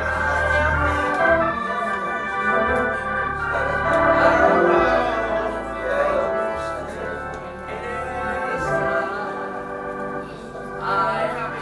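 Organ playing sustained chords over held bass notes that change every second or two.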